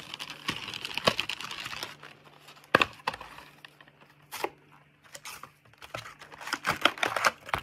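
Toy packaging being torn open and crinkled by hand, with a few sharp snaps in between.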